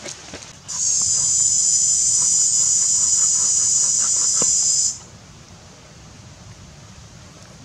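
A loud, steady, high-pitched insect buzz that starts about a second in and cuts off suddenly about five seconds in. Under it and after it come faint ticks of a cleaver scraping scales off a fish on a wooden board.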